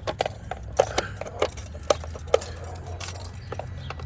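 A spark plug being handled and refitted in the engine bay: irregular sharp metallic clicks and taps, the loudest a little under a second, about two seconds and about two and a half seconds in.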